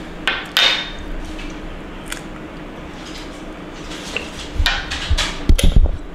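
Drinking glasses handled while a shot is taken: a few light clinks and scrapes, then a cluster of louder knocks and thumps near the end.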